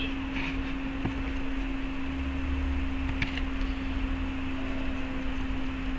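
Steady low electrical hum with faint hiss, the background noise of the voice recording, with a couple of faint ticks.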